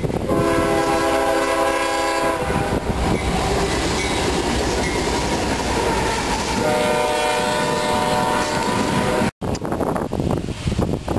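Diesel freight locomotive's multi-chime air horn sounding two long blasts as the train passes, over the rumble of the locomotive and the clicking of the wheels on the rail joints. The sound cuts off abruptly near the end.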